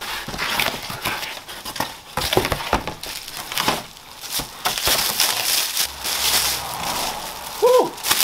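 Black plastic wrapping crinkling and cardboard rustling and scraping as a package is unpacked by hand, a continuous run of small crackles and crinkles.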